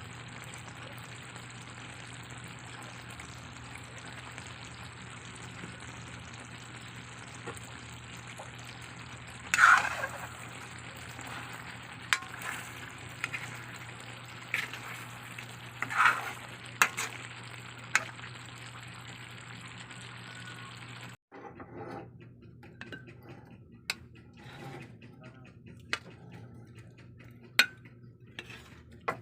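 Chicken sizzling in a frying pan, with a utensil stirring and clinking against the pan several times. About two-thirds of the way through the steady sizzle cuts off abruptly and scattered quieter clicks and clinks of utensils follow.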